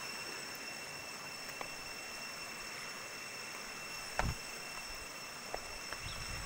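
Steady rushing of a waterfall. A sharp knock with a thud comes about two-thirds of the way in, and a couple of lighter clicks follow.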